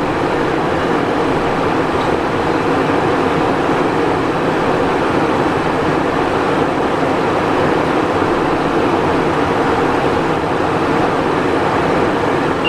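Steady cockpit noise of a Cessna Citation Encore business jet in flight: an even rushing hiss of airflow and engine noise with no change in pitch or level.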